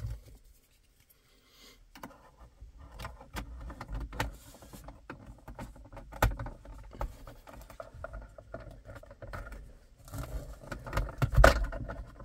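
A plastic access cover being fitted over a rear-view mirror mount by hand: a run of small plastic clicks, taps and scrapes, starting about two seconds in and getting busier and louder near the end.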